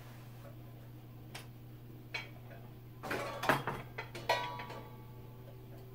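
A table lamp with a wooden base being moved and set down on a wooden tabletop: a couple of light knocks, then a cluster of louder clattering knocks about three seconds in and a last sharp knock with a brief ring just after four seconds. A steady low hum runs underneath.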